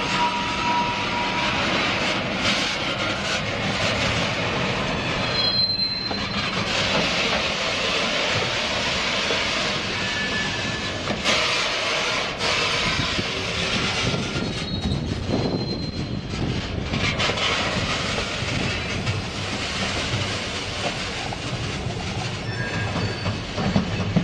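Herzog maintenance-of-way train rolling slowly past, its steel wheels rumbling and clicking over the rail joints. Short high-pitched wheel squeals come and go, a few seconds in and again in the middle.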